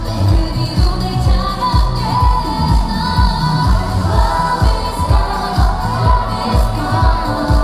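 Female K-pop group singing live over a pop backing track with a steady kick-drum beat.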